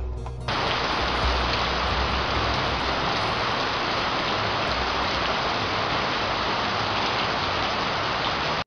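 Steady rain falling: an even hiss that comes in suddenly about half a second in and cuts off abruptly near the end.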